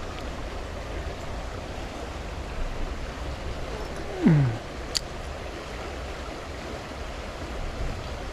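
Small, shallow river flowing steadily over stones. About four seconds in comes a short cry falling in pitch, the loudest moment, followed by a single sharp click.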